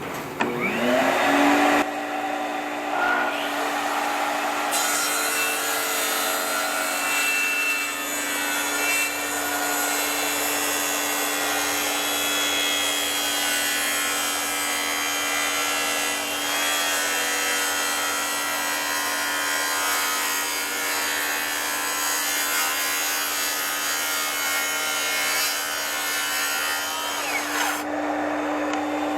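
Makita track saw spinning up, then cutting steadily through a thick red mahogany table top for over twenty seconds, and winding down near the end.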